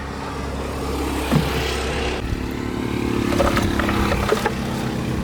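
A motor running steadily, its tone changing about two seconds in, with a few sharp metallic knocks.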